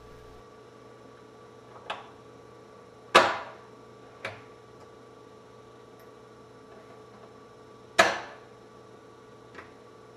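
Spring-loaded plug spinner snapping a lock's plug around: two loud sharp metallic snaps with a short ringing tail, about three and eight seconds in, with fainter clicks between as the tool is set. The spring whips the plug round faster than the pins can drop, turning a lock that was picked the wrong way to the open side.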